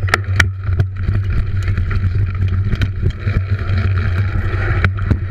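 Wind rumble and bike rattle on a frame-mounted action camera as the bicycle rolls down a wooden run-in ramp, with frequent sharp clicks and knocks from the bike and ramp. The sound cuts off suddenly at the end.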